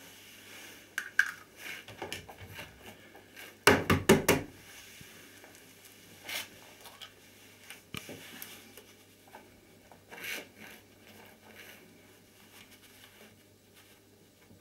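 Raw egg being crushed by hand into a sneaker: scattered shell cracks and wet rubbing and squishing, with a quick run of loud cracks about four seconds in.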